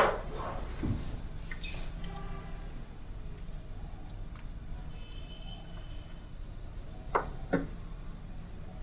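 Quiet kitchen room tone with two short, sharp taps about half a second apart near the end.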